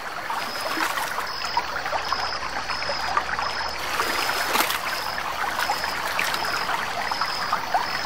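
River water running and trickling over rocks, with a steady spatter of small gurgles and splashes. A short high chirp repeats evenly, just under twice a second.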